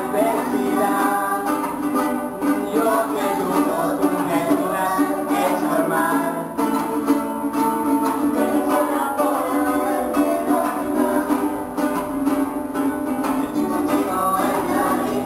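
A group of young voices singing a song together, accompanied by a strummed Venezuelan cuatro and an acoustic guitar.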